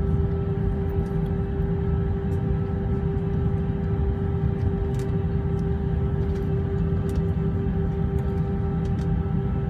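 Cabin noise of a jet airliner taxiing: a steady low rumble of the rolling aircraft with a constant hum from the engines and air systems, and a few faint ticks.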